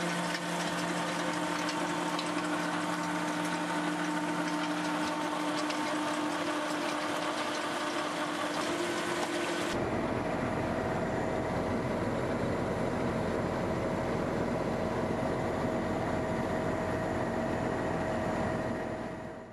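Tractor-mounted Valentini FR shredder running, its rotor grinding brush and roots. About ten seconds in the sound switches abruptly to a deeper, rougher machine noise.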